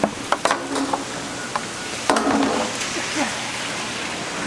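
Live gizzard shad flapping in a wire-mesh scoop net, giving a few sharp clicks and rattles, over a steady hiss of running water from the fish tanks.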